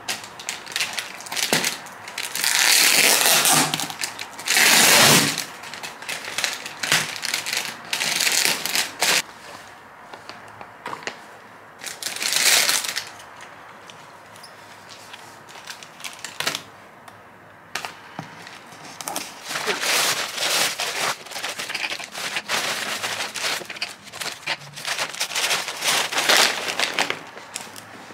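Plastic and paper packaging crinkling and rustling in irregular bursts as groceries are unpacked from a cardboard delivery box, with a denser stretch of handling in the second half.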